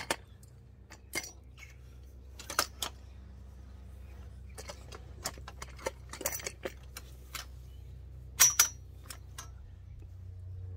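Metal frame and fittings of a folding fishing barrow being handled: irregular light clanks and clicks of steel tubing and parts knocking together, with a louder double knock late on.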